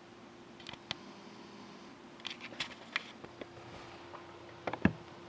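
Light scattered clicks and taps of cards and a cardboard box being handled, with a louder knock near the end, over a faint steady hum.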